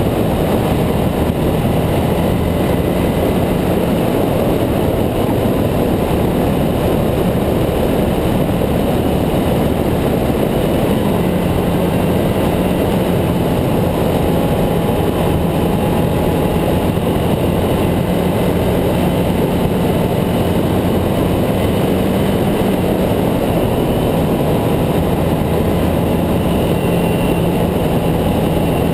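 Ducati Hypermotard 796's air-cooled L-twin engine running at steady revs while cruising at about 60 mph, buried in a heavy, even rush of wind and road noise.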